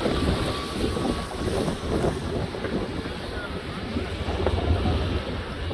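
Continuous rumble of many New Year's Eve fireworks going off at a distance, with small pops merging into a steady roar and wind buffeting the microphone.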